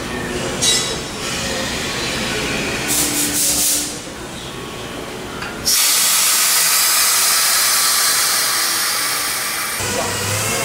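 Compressed air hissing through a pneumatic bellows jack, with a couple of short hisses in the first half, then a louder, steady hiss that starts suddenly about halfway through as the air bags fill.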